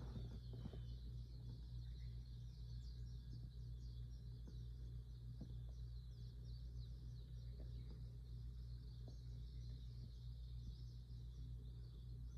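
Small birds chirping, many short high chirps overlapping in a continuous chorus, over a steady low hum.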